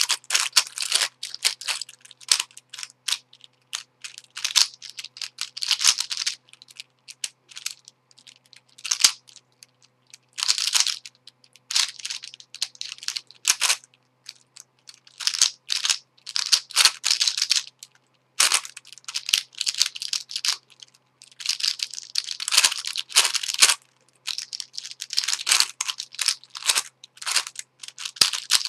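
Witeden 3x3x9 cuboid puzzle's plastic layers clicking and clacking as they are turned quickly by hand, in bursts of rapid turns broken by short pauses.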